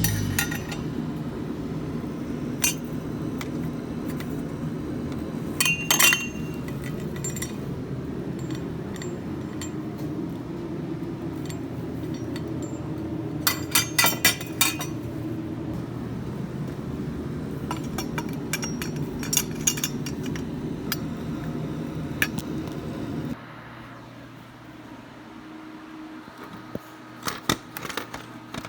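Hand tools and metal parts clinking and clattering as they are handled, in scattered small clusters, over a steady low hum that cuts off about 23 seconds in.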